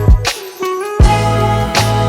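Background music: a funk or hip-hop style track with a steady kick-drum beat, bass and sustained melodic notes.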